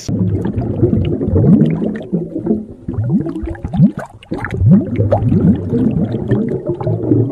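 Underwater bubbling sound effect: a busy run of short rising bubble gurgles over a steady low rumble.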